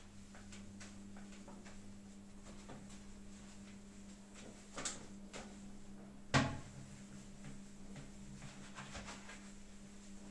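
Sponge scrubbing and wiping a ceramic toilet bowl and its plastic lid, with small rubbing and clicking sounds over a steady low hum. A sharp knock a little past the middle is the loudest sound, with a smaller one shortly before it.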